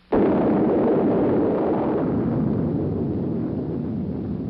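Nuclear detonation of a 15-kiloton gun-type shell fired from the Army's 280 mm atomic cannon: a sudden loud blast that carries on as a noisy rumble, slowly fading over several seconds.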